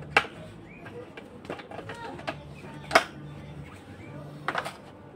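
Scattered clicks and knocks of a plastic baby rocker frame being handled as its fabric seat cover is fitted over it, the loudest about three seconds in and a quick run of them near the end.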